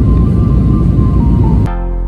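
Background music over the steady rush of airliner cabin noise; the cabin noise cuts off abruptly about one and a half seconds in, leaving the music alone.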